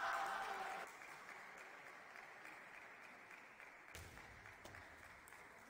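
Spectators applauding in an arena after a table tennis point, fading away over the seconds. A short shout opens it, and a single sharp knock comes about four seconds in.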